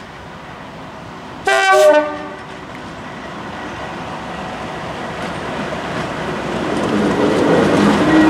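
Class 37 diesel locomotive 37263 sounds its two-tone horn in one short blast about a second and a half in, the note stepping down in pitch. Its English Electric V12 engine then grows steadily louder as it draws closer.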